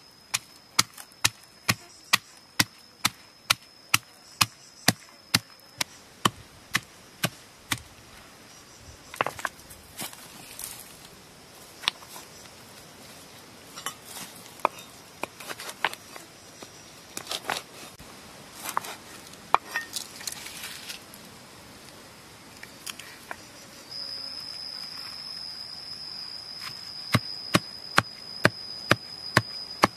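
Blade chopping food on a board in steady strokes, about two a second, then slower, irregular cuts through the middle, and steady chopping again near the end.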